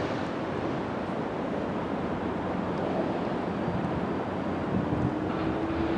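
Wind buffeting the microphone over the steady low rumble of a large container ship and the tug alongside it. A faint steady hum joins about five seconds in.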